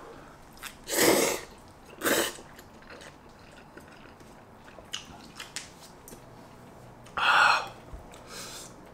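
A man slurping and chewing spicy chili jjajang ramen noodles, with short, loud slurps about a second in, again about two seconds in, and once more near the end.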